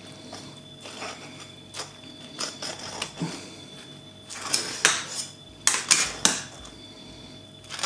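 Metal ladle knocking and clinking against the rim and sides of an enamel pot as its handle is pushed down into fermenting sauerkraut to let the gases out. The knocks are short and sharp, scattered at first, then coming closer together in the second half.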